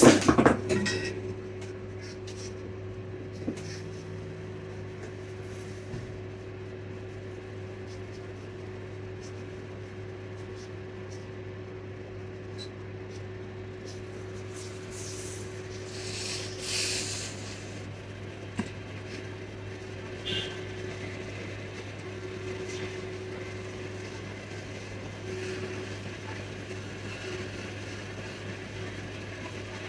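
Steady low electrical hum from workbench equipment, broken by a few brief hissing or scraping noises around the middle.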